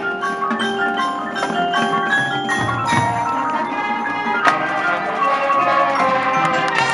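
Music played on mallet percussion, quick runs of short ringing notes over a steady beat, with one sharp hit about four and a half seconds in.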